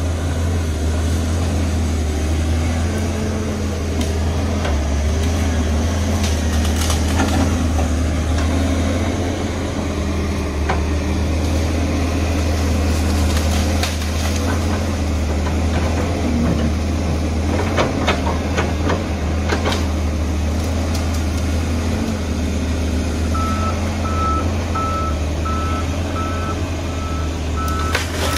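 Wheel loader's diesel engine running steadily, heard from inside the cab, with occasional clunks. About 23 seconds in, a reversing alarm starts beeping at about one beep a second.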